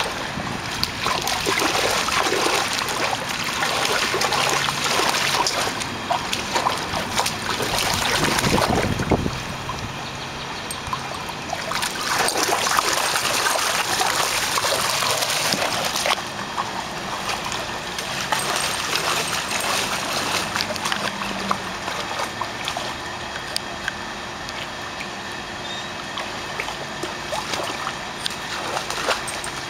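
A dog splashing in a shallow plastic kiddie pool, pawing at the water and dipping its muzzle into it. The splashing is louder for the first several seconds and again for a few seconds midway, then quieter and steadier toward the end.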